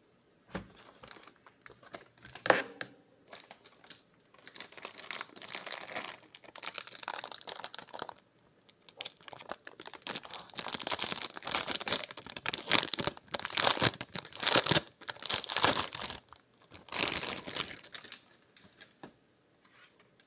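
Unboxing packaging crinkling and rustling as it is handled and pulled open, in several long spells. There is one sharp tap about two and a half seconds in.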